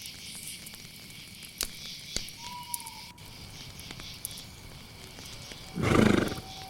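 Night ambience of chirping crickets with scattered crackles from a campfire and a single owl-like hoot about two and a half seconds in. About six seconds in, one loud, short animal call stands out over everything else.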